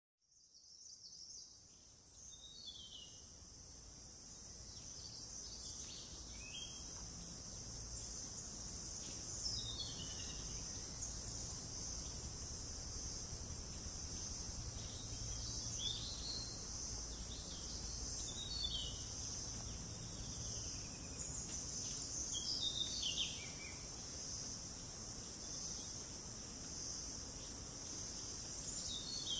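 Tropical forest ambience: a dense, steady high-pitched drone of insects, with a bird giving short descending calls every few seconds. The sound fades in over the first two seconds.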